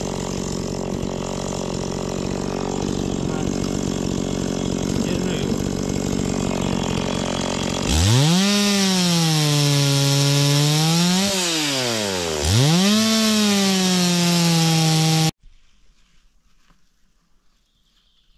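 Mikatsu outboard motor running under way with wind and water noise. About eight seconds in the engine note becomes louder and clearer, rising sharply, dipping and rising again with throttle changes, then stops abruptly a few seconds before the end.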